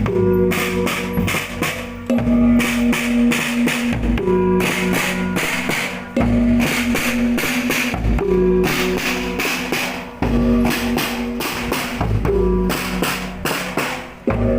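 Music with a steady drum beat: quick, even strikes under held pitched notes that change about every two seconds, each change marked by a heavy low hit.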